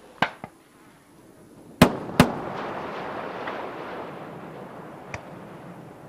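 Space shuttle orbiter's twin sonic booms: two sharp bangs about half a second apart, followed by a few seconds of fading rushing noise. The double boom is heard at the landing site as the orbiter goes subsonic on its approach.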